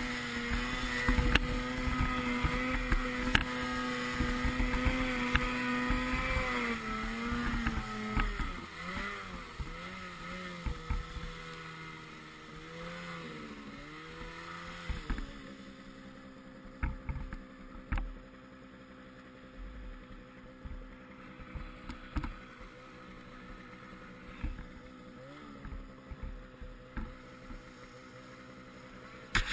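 Snowmobile engine running at steady high revs. After about seven seconds the revs swing up and down as the throttle works. About halfway through it settles to a lower, steady run, with occasional knocks and thumps.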